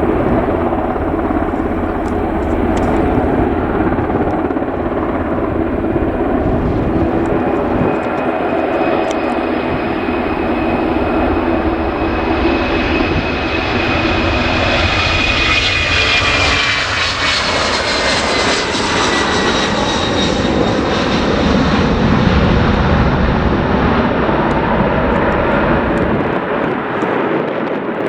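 Jet airliner engines running loud as the aircraft passes close by: a steady roar, with a high whine that builds and then glides down in pitch about two-thirds of the way through, before easing off near the end.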